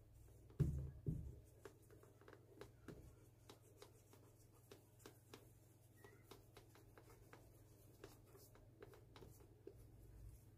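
Cobbler's hammer tapping down a fresh layer of cork filler on a welted shoe's bottom to flatten it before the sole goes on. Quiet, irregular light taps a few a second, with two heavier knocks about a second in.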